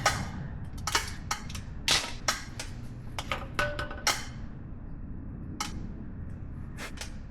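Sharp metallic clicks and taps of hand tools working at a truck's front wheel hub, several a second at first and only a few near the end, some with a brief ring of metal.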